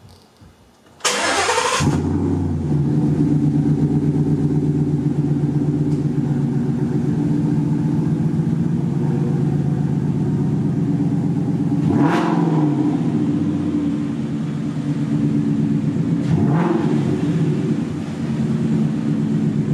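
2016 Ford Mustang GT's 5.0 V8, its mufflers deleted, fires up about a second in and settles into a steady idle. It is revved briefly twice, the second blip a few seconds after the first, near the end.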